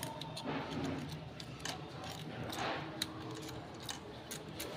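Scattered light metallic clicks and ticks at irregular spacing: small metal engine parts and hand tools being handled while the engine is stripped down.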